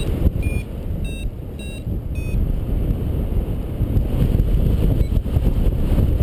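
Wind rushing over the microphone in flight, the loudest sound throughout, with a paragliding variometer beeping its climb tone about twice a second for the first couple of seconds; the beeps then stop as the climb ends.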